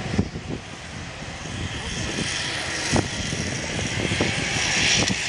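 Personal watercraft engine running steadily at high revs to drive a flyboard's water jets, a continuous droning rush, with three brief knocks.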